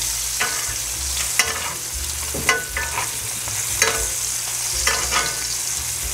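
Ribeye steaks sizzling in foaming butter in a cast iron pan, with a metal spoon scooping and clinking against the pan about once a second as butter is basted over the meat.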